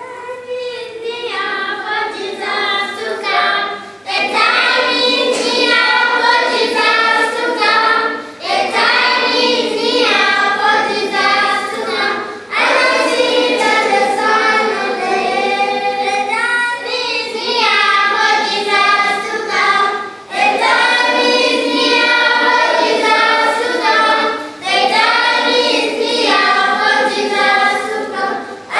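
A choir of school children singing together, loud and steady, in phrases of about four seconds with short breaks between them.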